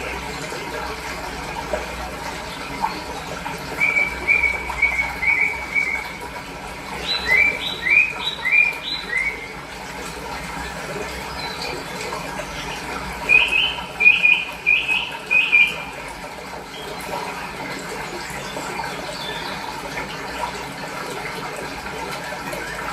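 Running water flowing steadily, with a small bird singing three short runs of quick, high chirps.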